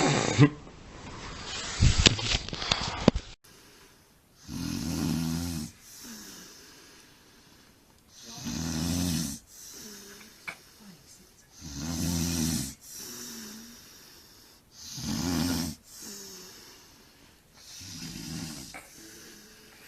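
A person snoring: five long pitched snores, each about a second long and one about every three and a half seconds, with a softer breath between them. The snoring starts a few seconds in, after a short stretch of noise with a couple of sharp clicks.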